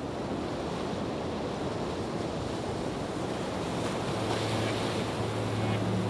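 Large waterfall: heavy rushing water as a dense, steady noise, growing slowly louder. About four seconds in, a low steady tone joins it.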